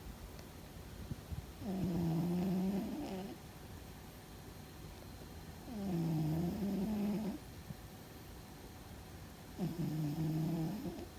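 A sleeping cat snoring loudly: three drawn-out snores, each about a second and a half long, coming about every four seconds, each dipping in pitch and rising again.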